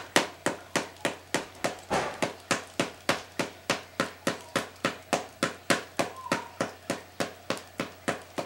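Paddle ball toy: the ball on its elastic string striking the paddle in a steady run of sharp taps, about three a second, that stops shortly before the end.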